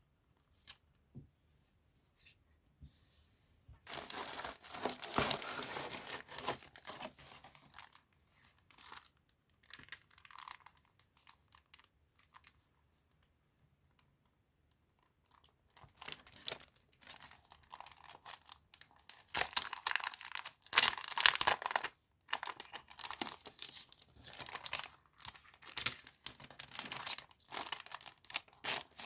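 Packaging and paper being unwrapped and handled, crinkling and tearing in irregular bursts. The rustling is sparser and quieter through the middle, then louder and denser over the second half.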